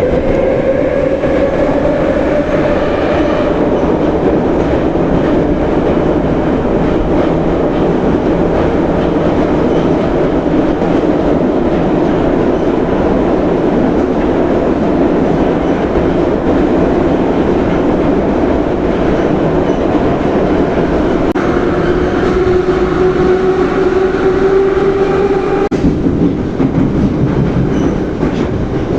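Moscow metro train running, with a steady rumble of wheels on rails. The electric traction motor whine falls in pitch near the start as the train slows, and about three quarters of the way in it rises as the train accelerates, then cuts off suddenly.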